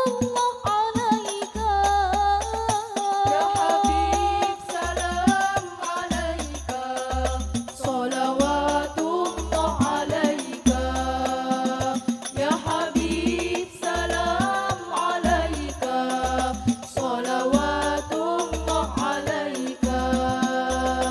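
Hadrah Al-Banjari performance: a group of young women singing a sholawat together into microphones, over a rhythm of hand-struck frame drums (terbang) with deep bass-drum beats.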